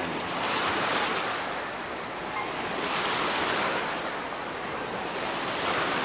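Wave pool water washing and sloshing in a steady rushing wash that swells and eases slowly.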